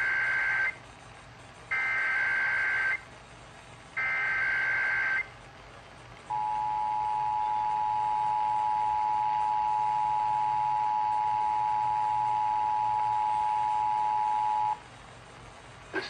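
Emergency Alert System (EAS) signal for a Required Weekly Test coming from an FM radio's speaker. First come the SAME header data bursts: three warbling bursts of two alternating high tones, each about a second long. Then, about six seconds in, the two-tone attention signal (853 and 960 Hz) holds steadily for about eight seconds and cuts off.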